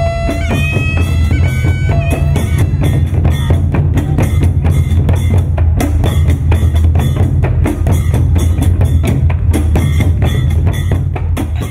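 Traditional Cambodian instrumental music: a reedy, high wind instrument playing a melody over a drone for the first couple of seconds, then drums beating a fast, dense rhythm over a steady low drone.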